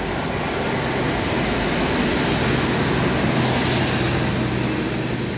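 WAP-4 25 kV AC electric locomotive and its passenger coaches passing close by: a steady rumble of wheels on the rails with a low hum running underneath, loudest around the middle.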